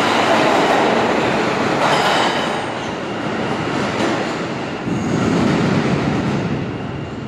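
An R160 subway train pulls out of an underground station and runs off down the tunnel, its wheels clattering with a short high squeal about two seconds in. The rumble fades as it goes, with a low swell a few seconds in.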